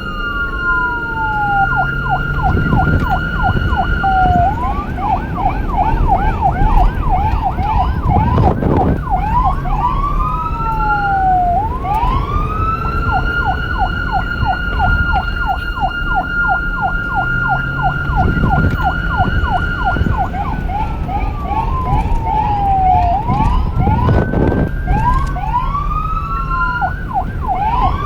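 Police sirens: a steady high tone held over a fast yelp of about four sweeps a second, broken by slow falling and rising wails, with a low rumble underneath.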